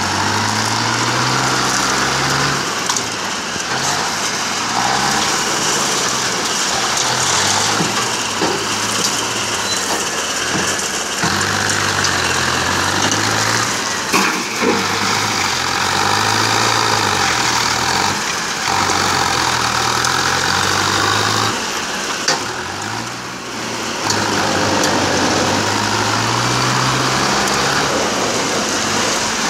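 Mahindra tractor's diesel engine working a front loader, its speed rising and falling repeatedly as the tractor scoops gravel and drives to the tipper truck. A couple of sharp knocks come around the middle.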